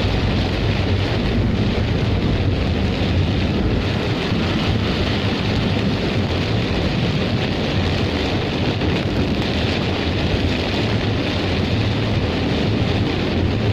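Heavy storm rain pouring steadily, with a constant low rumble of vehicle and wind noise underneath.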